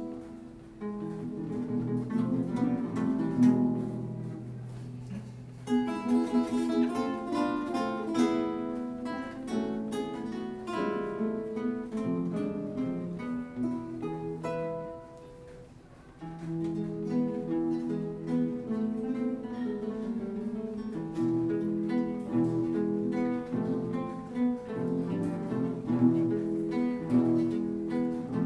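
An ensemble of eight acoustic guitars playing a piece in triple time, chords and plucked melody lines together. About halfway through the playing drops quieter for a moment, then picks back up.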